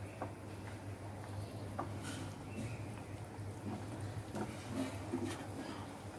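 Pot of khichuri (rice, mung dal and hot water) coming to the boil: scattered small bubbling pops, a few fuller ones between about four and five and a half seconds in, over a steady low hum.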